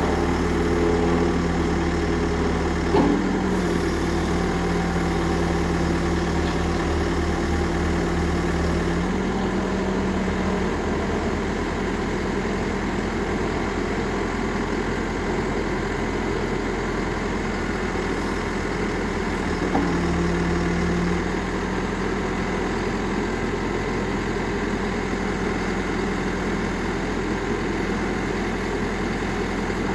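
CAT 416C backhoe loader's diesel engine idling steadily. There is a small click about three seconds in and another near twenty seconds, and the engine note shifts slightly around nine seconds.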